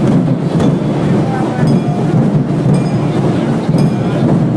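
Dense crowd noise from a street procession: many voices shouting and talking at once, with a sharp beat about once a second.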